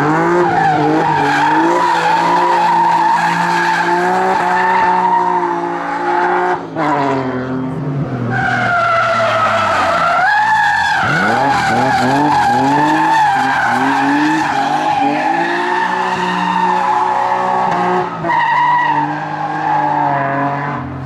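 BMW E30 3 Series race car at full throttle, its engine revving hard. The revs drop sharply and climb again about a third of the way in, around the middle and near the end, as it shifts and lifts for corners.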